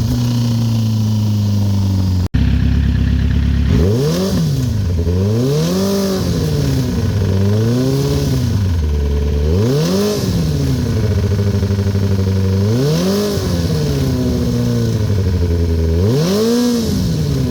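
2008 Kawasaki ZX-10R inline-four engine idling, then blipped again and again, the revs rising and falling about every two to three seconds. The bike has a knocking noise that the owner is trying to identify.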